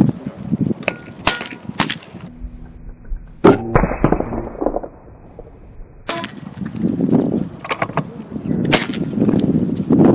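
A string of sharp air rifle shots going off at irregular intervals, some followed by a short metallic ring. The loudest comes about three and a half seconds in, in a muffled stretch.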